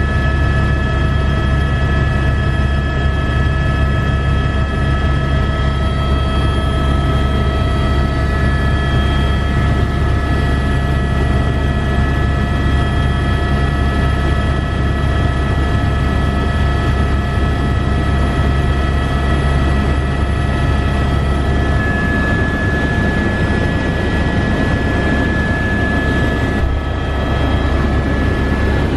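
Helicopter turbine engine and rotor in steady flight, heard from inside the cabin: a loud, even deep drone with several constant high whining tones over it.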